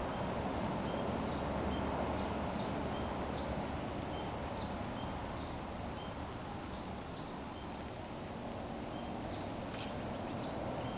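Steady outdoor hiss beside a pond, with a short high chirp from a small creature repeating about twice a second. About a second before the end comes a brief sharp swish as the long fishing rod is swept up to strike.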